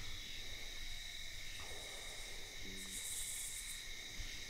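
Night insects keep up a steady, high, unbroken trill. About three seconds in, grass rustles briefly underfoot as the tracker moves along the trail.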